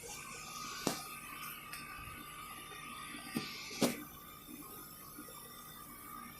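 Outdoor central air-conditioner condenser units running, a faint steady hum with a thin steady whine, broken by three short sharp clicks about a second in and twice near the middle.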